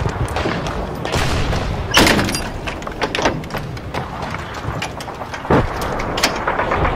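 A series of heavy thuds and sharp knocks, the loudest about two seconds in and two more near the end, over steady outdoor noise.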